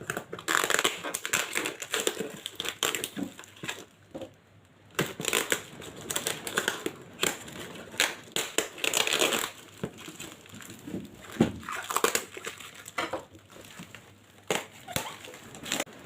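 Packaging being handled and torn open: irregular crinkling, rustling and crackling with sharp little clicks, easing off briefly about four seconds in.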